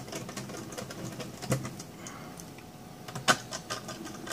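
Small screws being picked up and driven back into a laptop motherboard: scattered light metallic clicks and ticks, with one sharp click about three seconds in.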